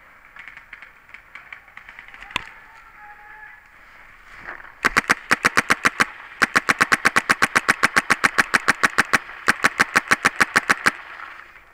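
Dangerous Power G5 paintball marker firing rapid strings of shots at about nine a second, in three runs with two short pauses, starting about five seconds in. Before that, only a few light knocks.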